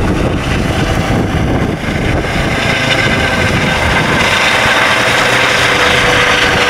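Eurocopter EC135 helicopter flying low, directly overhead: loud rotor and twin-turbine noise. A high whine grows stronger about four seconds in.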